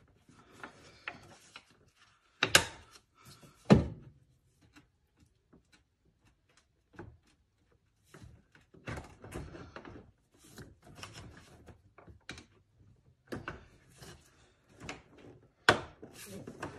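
Hands working parts in a car's engine bay, sliding them down and clipping them into place: scattered knocks, clacks and rattles. The loudest are two sharp knocks about two and a half and three and a half seconds in, and another near the end.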